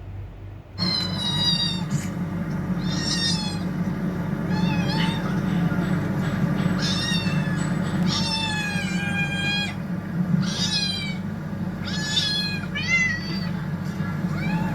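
A cat meowing over and over, about nine high-pitched calls that bend up and down in pitch, starting suddenly about a second in, over a steady low hum.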